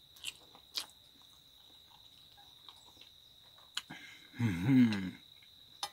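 Insects chirring steadily at a high pitch, with a few light clicks of a fork on a plate. About four and a half seconds in comes a short voiced hum that rises and falls in pitch.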